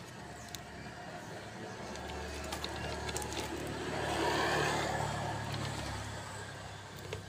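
A motor vehicle passing by: a low engine rumble and road noise that swell to their loudest about halfway through, then fade away.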